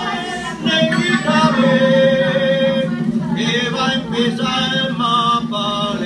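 A song with singing over a steady accompaniment, including a long held note about two seconds in.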